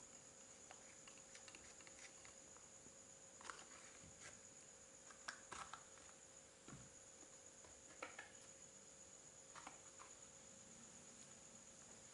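Near silence: faint steady hiss with a thin high whine, broken by a few faint brief clicks and rustles.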